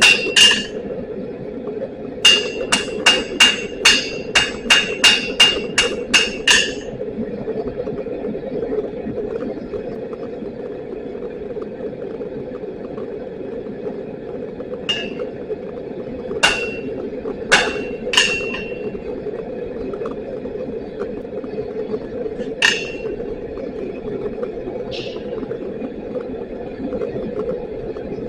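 Hammer blows on an anvil during hand forging, each strike leaving a short high ring: a quick run of about a dozen blows at roughly three a second, then a handful of single, spaced-out taps. A steady rushing noise runs underneath.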